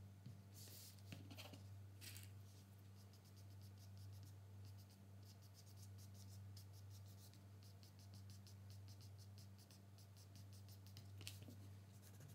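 Faint scratching and rubbing strokes on paper as a charcoal drawing is corrected with a kneaded eraser, a few stronger strokes near the start and one near the end, over a low steady hum.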